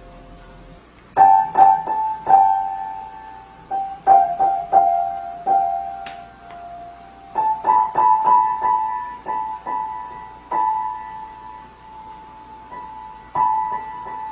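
A cat pawing at the keys of a grand piano, starting about a second in: scattered single notes and small clusters in a narrow upper-middle range, struck at an uneven pace, some left to ring for a second or two.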